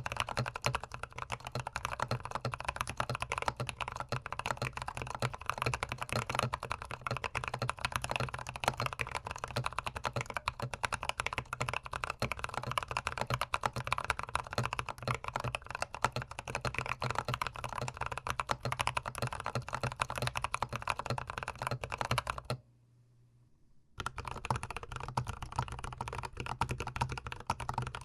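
Fast, continuous typing on a GMMK Pro mechanical keyboard, recorded close to the keys. The typing stops for about a second near the end, then resumes.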